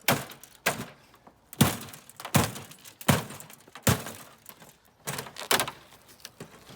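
Plastic back panel of a TV being ripped and broken away: a series of sharp cracks and knocks, about eight in six seconds.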